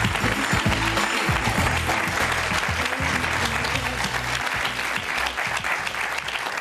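Studio audience applauding over music with a steady low bass line. The applause and music stop together at the end.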